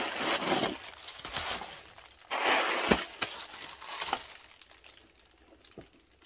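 White paper stuffing crinkling and rustling as it is pulled out of a leather tote bag, in two bursts with a sharp click in the second, then dying away.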